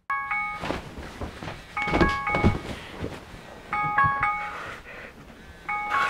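Smartphone alarm ringing: a short chime of several notes that repeats about every two seconds, with rustling and movement in between as the sleeper stirs.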